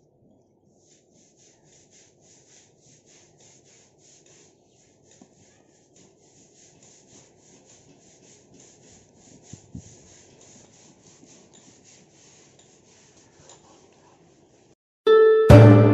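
Faint rubbing and light knocks of gloved hands handling brass binoculars, with a faint high chirp repeating about three times a second behind it. Loud harp music starts near the end.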